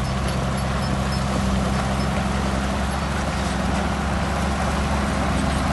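Diesel engine of heavy earthmoving equipment running steadily under load, with a low, even drone.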